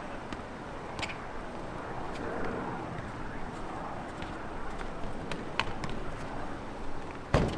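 Soccer ball kicked back and forth on a concrete court: a few sharp taps over a steady outdoor background noise, with a louder thump near the end.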